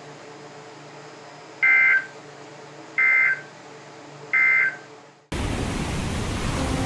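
Three short EAS/SAME end-of-message data bursts from a NOAA Weather Radio broadcast, the two-tone digital warble played through a weather radio's speaker, each under half a second and about 1.3 seconds apart, marking the end of the required weekly test. A little over five seconds in, a loud steady hiss suddenly starts.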